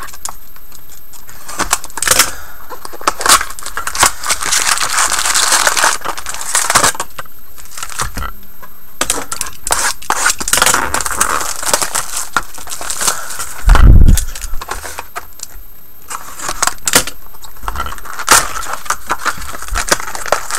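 Cellophane shrink wrap crinkling and tearing as it is stripped off sealed trading-card boxes, with clicks of cardboard being handled. One heavy low thump comes about two thirds of the way through.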